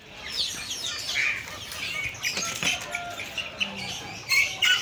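Many small birds chirping over one another in quick, short calls, with a chicken clucking now and then; the chirping grows louder near the end.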